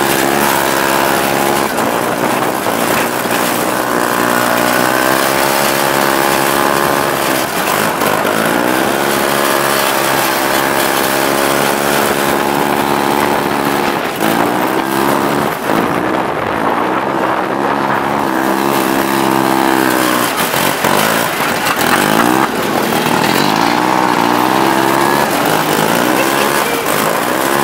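Small vintage snowmobile engine running under way, heard from the seat while riding. Its pitch rises and falls several times as the machine speeds up and slows.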